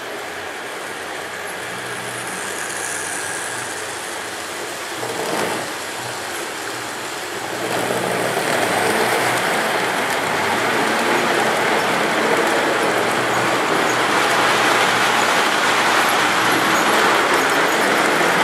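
Model trains running on the layout track: a steady rolling rumble of metal wheels on rail, getting louder about eight seconds in as O scale streamlined passenger cars pass close by.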